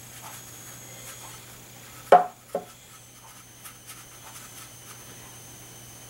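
Two sharp knocks, a loud one about two seconds in and a softer one half a second later, with a few faint small taps after them.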